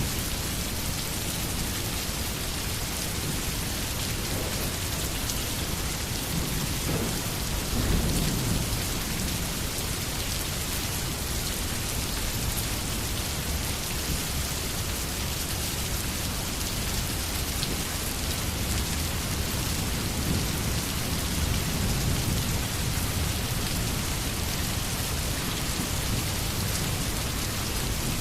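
Steady rain falling, with a low rumble of thunder swelling about eight seconds in and again past twenty seconds.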